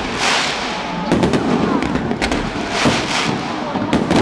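Aerial fireworks shells bursting in a rapid series of sharp bangs, with stretches of crackling hiss from the exploding stars after some of the bursts.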